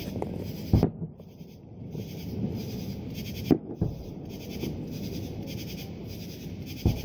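Distant aerial firework shells bursting: four sharp booms, one about a second in, two close together around three and a half seconds, and one near the end. Underneath runs a steady low murmur with a rhythmic high pulsing.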